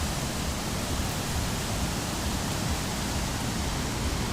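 Rushing water from a rain-swollen mountain stream or waterfall: a steady, even hiss with no breaks.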